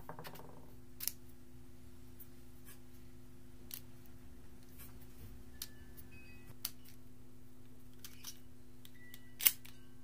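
Small plastic clicks from a 3D-printed wallet multitool's SD card slot as a microSD card adapter is pushed in and seated: a few soft ticks spread out, then one sharp click near the end.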